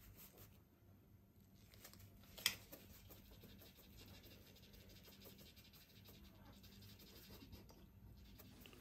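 Faint scratching of a gloved hand rubbing flour and powdered sugar through a stainless steel mesh sieve, with one short knock about two and a half seconds in.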